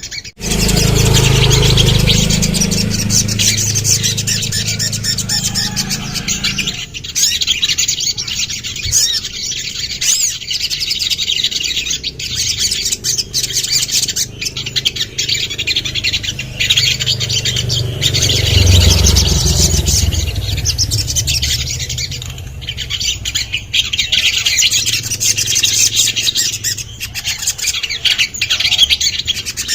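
Little spiderhunter (sogon) calling continuously in rapid, high-pitched chirps and trills. A low rumble runs underneath, strongest in the first seven seconds and again for a few seconds past the middle.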